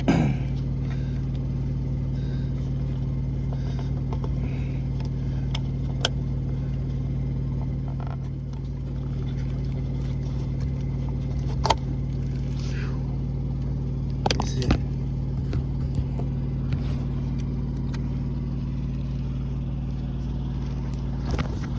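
Steady low hum of an idling engine throughout, with a few sharp clicks and knocks of parts being handled, the loudest about twelve and fourteen seconds in.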